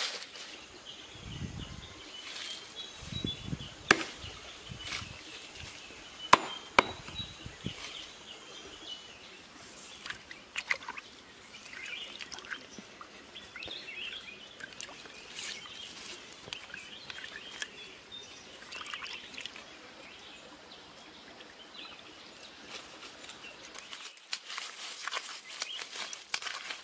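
Hands rustling leaves and twigs around a small water-filled hole in the ground, with low handling thuds and a few sharp clicks in the first eight seconds. Bird chirps sound faintly throughout.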